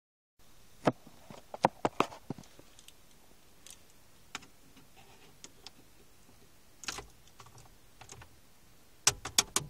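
Scattered sharp clicks and knocks in small clusters, with a quick run of four or five near the end.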